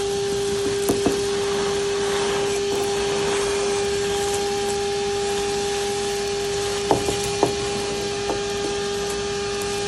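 A small electric motor running steadily, a constant whine over rushing air noise, with a few light clicks and knocks a second in and again around seven to eight seconds in.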